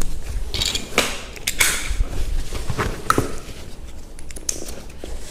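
Irregular plastic clicks and knocks from a high chair's five-point harness buckle being handled and fitted together.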